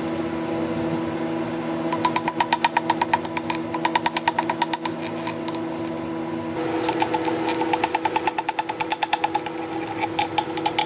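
Air chisel rattling against a fresh steel weld bead, chipping off the slag in two bursts of fast, even strikes, the first about two seconds in and the second from about six and a half seconds on. A steady machine hum runs underneath.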